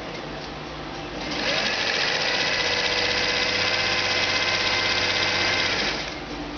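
Electric sewing machine stitching ripstop nylon. It runs at a low level for about the first second, then speeds up and runs steadily and louder for about five seconds before dropping back down near the end.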